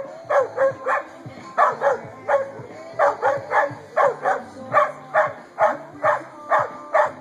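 Dog barking over and over, in quick runs of two to four barks, about two or three barks a second.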